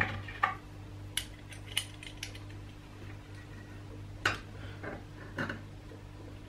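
Metal washers and the spot stud welder's torch clicking and clinking against a steel panel while they are handled and set in place: about six short, sharp taps spread through, over a steady low hum.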